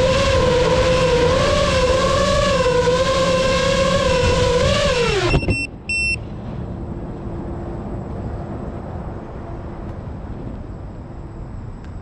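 Electronic background music, a wavering synth tone over a light ticking beat, that slides down in pitch and cuts off about five seconds in. Two short high beeps follow, then quiet outdoor ambience.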